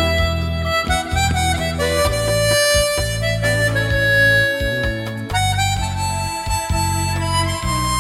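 Chromatic harmonica playing a held, slow vocal-style melody over a backing track with bass and guitar.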